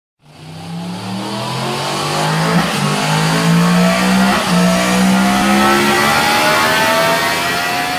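Vehicle engine accelerating hard, its pitch climbing steadily, with two small clicks about two and a half and four and a half seconds in; it cuts off suddenly at the end.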